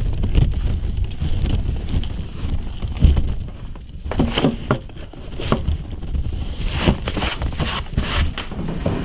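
Wind buffeting the microphone in a blizzard, a rough uneven rumble. From about four seconds in comes a run of short crunching noises in the snow.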